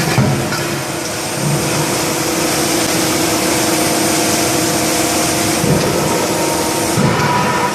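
Hydraulic forging hammer machinery running steadily: a hum with a few steady tones under a strong hiss, with a few light knocks near the start and around six and seven seconds in.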